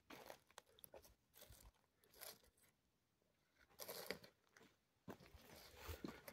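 Faint, slow footsteps crunching on stony, gravelly ground, a few scattered steps with short pauses between them.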